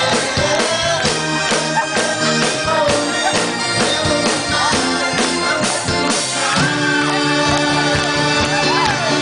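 Live rock band playing, amplified through the venue: a drum kit beating steadily over electric bass and guitars. About two-thirds of the way in, the band settles onto long held notes while the drums keep time.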